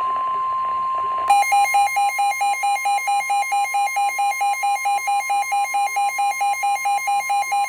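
NOAA Weather Radio's steady 1050-hertz Warning Alarm Tone, the signal that a warning message follows. About a second in, the weather radio's own harsher alarm joins it, beeping rapidly about four or five times a second.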